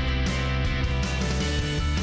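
Instrumental intro theme music with a regular beat.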